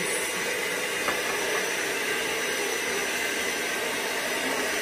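Electric hand mixer running steadily, its beaters whisking thin crepe batter in a metal pot.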